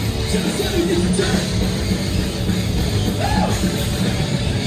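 Live rock band playing loud: distorted electric guitars and drums, without a break.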